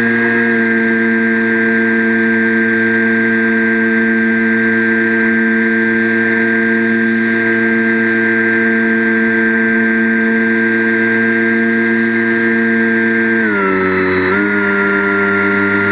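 FPV quadcopter's brushless motors and propellers whining at a steady pitch, carrying the on-board camera. Near the end the pitch dips for about a second as the throttle is eased, then settles a little lower.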